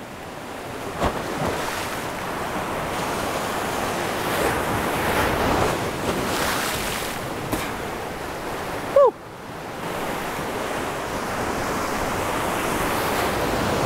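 Surf breaking and washing over shoreline rocks in repeated surges, with wind buffeting the microphone. About nine seconds in there is a brief, loud squeak that falls in pitch.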